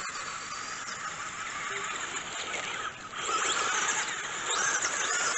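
Several Traxxas Bandit electric RC buggies racing, their motors whining with many overlapping rising and falling pitches as they speed up and slow down. The sound dips briefly just before the three-second mark, then grows louder as the pack passes close by.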